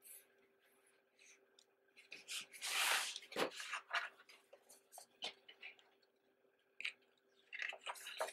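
Paper handling: the stiff cover and pages of a paperback concert program book rustling and sliding on a table as it is picked up and opened, loudest about three seconds in, with a few light taps and more page rustling near the end.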